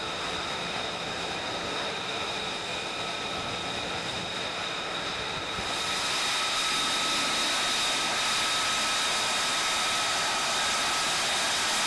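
F-35B Lightning II's jet engine running on a ship's flight deck: a steady rushing noise with a high turbine whine, growing louder and brighter about six seconds in.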